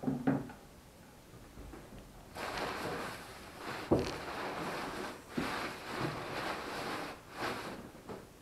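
Cardboard box and packing paper rustling and scraping as they are handled and pulled apart, in several stretches with short breaks, and one sharp knock about four seconds in.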